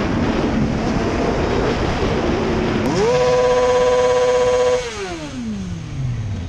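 Sport motorcycle engine heard from the rider's seat over wind rush: the engine note climbs quickly as the throttle opens about three seconds in, holds steady at its loudest for under two seconds, then falls steadily as the bike slows.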